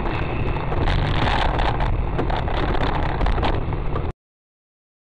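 Vehicle driving noise: a steady low rumble with crackling that cuts off suddenly into silence about four seconds in.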